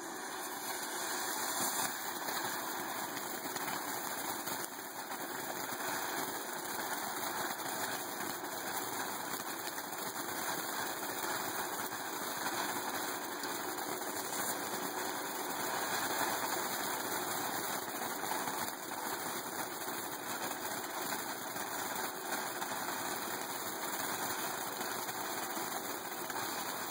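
"Perfect Silence" consumer firework fountain, a type sold as a quiet fountain, burning with a steady hiss as it sprays sparks.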